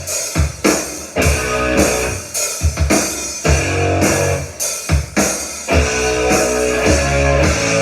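Rock band instrumental break: electric guitar with bass and a drum kit beating a steady rock rhythm, no vocals.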